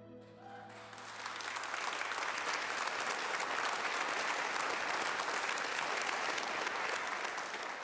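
The last held note of a song fades out, and about a second in an audience starts applauding, clapping steadily through to the end.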